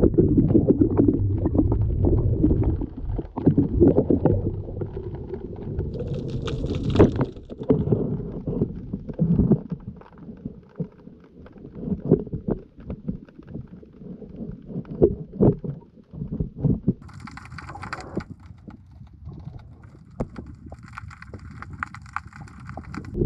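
Muffled underwater sound picked up by a GoPro in its waterproof housing on a line under the water: a low rumble of moving water with many small knocks and bumps.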